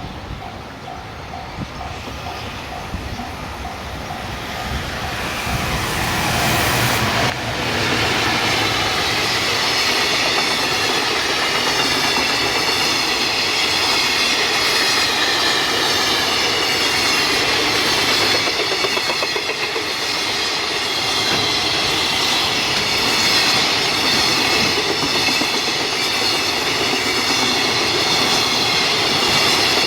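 A level-crossing warning bell dings over and over as a freight train approaches, the train growing steadily louder. About seven seconds in, the EF210 electric locomotive passes, and then the freight wagons roll by with loud, steady wheel-on-rail noise.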